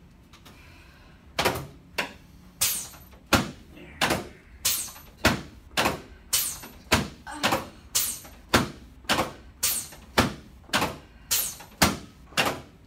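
A steady run of sharp knocks, close to two a second, starting about a second and a half in and going on throughout: a chiropractic adjusting table thumping under a repeated rhythmic manipulation of the patient's leg and low back.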